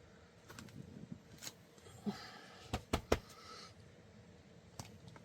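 Quiet handling sounds of stamping with a clear stamp on an acrylic block: a few light taps and clicks, with three sharper knocks close together about three seconds in.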